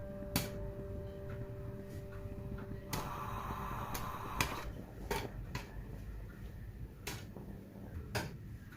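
Popcorn kernels popping sparsely in a pot: single sharp pops at irregular intervals, about eight in all, with a short spell of rustling noise in the middle.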